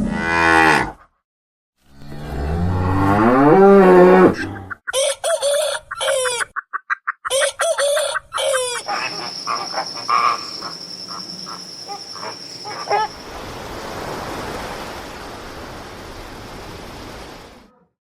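A run of different animal calls, one after another, edited together. First a long drawn-out call that rises in pitch. Then rapid repeated short calls, and finally a noisier stretch with a thin high steady tone.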